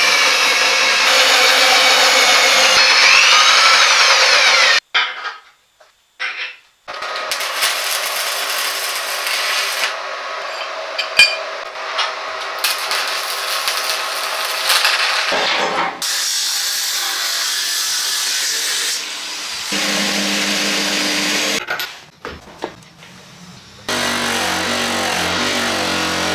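A power tool running against metal, in several short clips that cut abruptly from one to the next.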